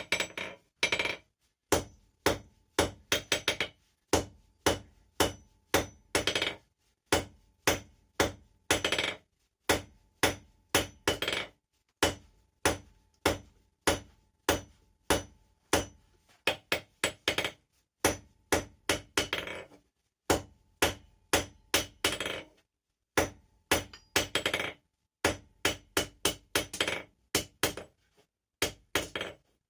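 Blacksmith's hammer striking hot steel bar stock on an anvil, hand-forging an S hook: a steady series of sharp blows, about two to three a second, with a few short pauses and a brief ring after some strikes.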